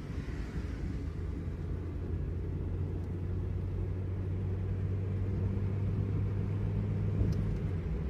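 Mazda MX-6's V6 engine running, heard from inside the cabin as a steady low hum. A light click near the end.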